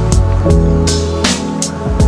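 Background music with a steady beat: sustained bass and chords with drum hits about three times a second.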